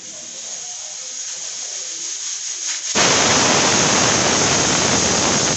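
Pressure cooker on a gas flame whistling: the steam hiss at the vent builds for about three seconds, then the weight lets go and a loud steady blast of steam rushes out. The whistle is the sign that the cooker has come up to pressure.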